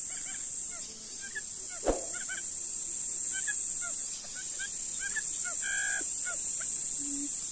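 Countryside ambience: a steady high insect drone with many short bird chirps, and a single sharp snap about two seconds in. Near the end a low, evenly repeated hooting call begins.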